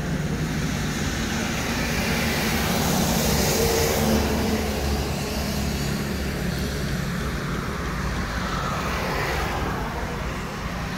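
Steady road traffic: a low engine hum with tyre hiss, swelling slightly about three to four seconds in as a vehicle passes.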